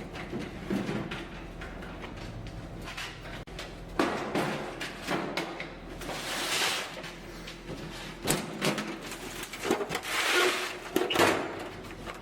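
Workshop clatter from bodywork: irregular knocks and clanks, with two short bursts of hissing noise about six and ten seconds in, over a low steady hum.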